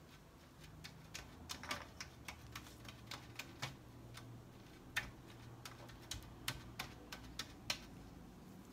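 Irregular light clicks and ticks as a small plastic capsule of star-shaped confetti is shaken and tapped over a metal tray, the tiny pieces landing on the metal. The clicking comes in loose clusters, with a sharper click about five seconds in.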